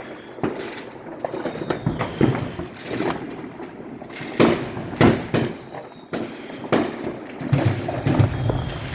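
Neighbourhood fireworks going off all around: a steady crackle of firecrackers broken by repeated sharp bangs. The loudest two come about four and a half and five seconds in.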